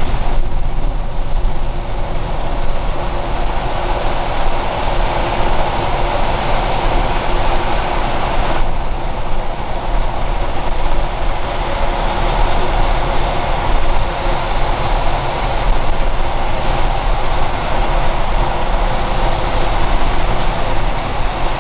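Steady engine and road noise inside a semi-truck's cab as it drives through a road tunnel. The tractor's air-ride suspension is let down, so the cab rides rough and hard.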